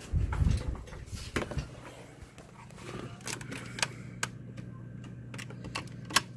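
Handling thumps as the phone is moved, then a series of small sharp clicks and taps from a USB cable plug being worked in the USB port of a Roku 3, over a low steady hum.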